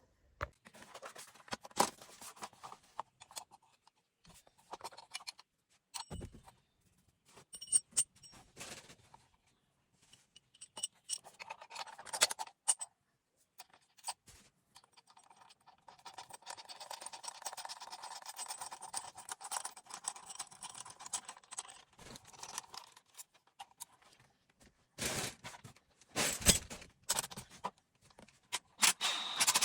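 Metal hardware and tools being handled while mounting seatbelt retractor brackets in a car body: scattered clicks, scrapes and clatter. A cordless drill runs steadily for about six seconds just past halfway, boring the bracket mounting holes. Several sharp knocks come near the end.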